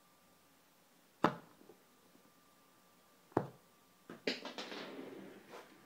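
Small plastic Kinder Surprise toy handled on a folder: two sharp clicks about two seconds apart, then a short clatter and rubbing near the end.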